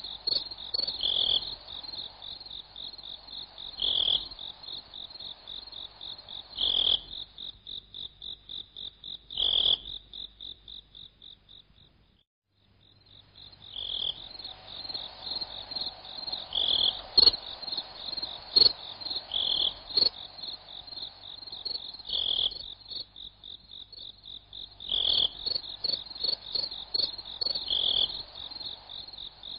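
A steady chorus of fast, pulsing high-pitched chirring, like insects and frogs calling, with a stronger note about every three seconds. It fades away about ten seconds in, drops almost to silence, and builds back a couple of seconds later. A few sharp ticks stand out in the middle stretch.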